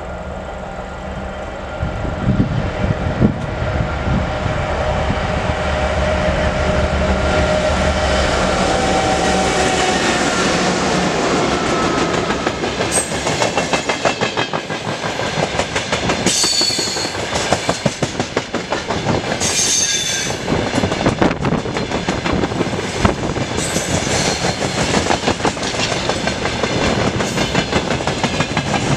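Broad-gauge train passing close by at a level crossing. For the first ten seconds or so the diesel locomotive's engine rumbles, with its tones dropping slightly in pitch. Then the wagons roll past with a rapid clatter of wheels over the rail joints and a few brief high squeals from the wheels.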